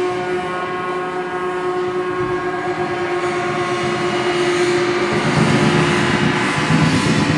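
Metal percussion bowed with a bow, giving a sustained ringing drone of several held tones and overtones. About five seconds in, a rougher buzzing rattle joins underneath and the sound grows a little louder.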